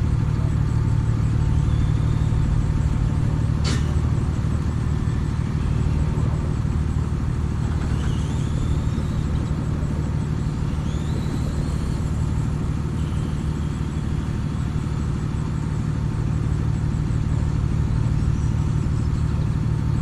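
Bucket truck's engine running steadily to power the hydraulic boom as the bucket is raised, with one sharp click about four seconds in.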